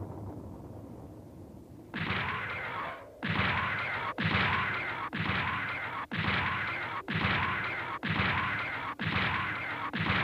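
Animated sound effect of a giant robot's heavy footsteps: a run of about nine stomps roughly a second apart, each with a deep, falling boom, starting about two seconds in after a low rumble.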